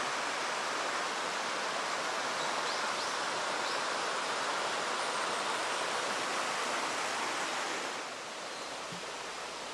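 Steady rushing of a mountain stream, an even hiss of running water that eases slightly near the end, with a couple of faint high chirps about three seconds in.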